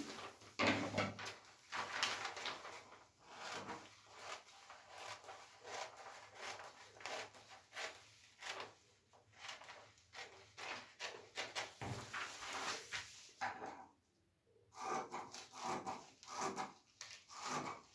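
Scissors cutting along a large sheet of pattern paper, with irregular snips and paper rustling as the sheet is shifted and turned on the table; a brief pause about fourteen seconds in.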